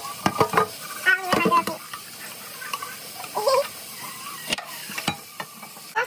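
Clatter of a pot being handled in a stainless steel sink: repeated short knocks and clicks. A voice talks in the background at times.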